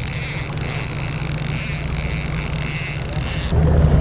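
Charter boat running steadily with wind on the microphone, a constant noise with no words. About three and a half seconds in the sound changes abruptly to a louder, deeper rumble of wind and water.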